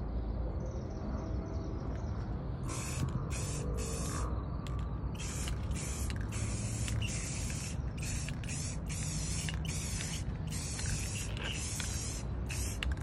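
Aerosol can of black spray paint hissing in a quick run of short bursts, starting about three seconds in.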